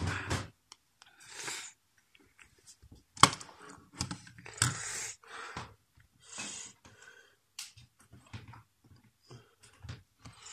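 Irregular close handling noises of crafting at a desk: rustling, scraping and small knocks, with one sharp knock about three seconds in.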